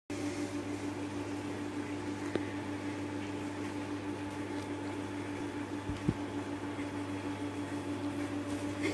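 A steady mechanical hum, with a light knock about two seconds in and another about six seconds in.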